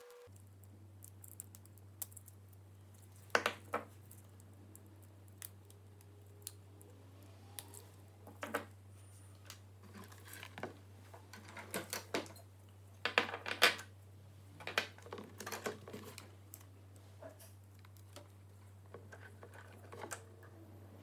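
Scattered light clicks and taps at irregular intervals, the sound of small plastic and metal parts and tools being handled on a workbench, busiest a little past the middle, over a steady low hum.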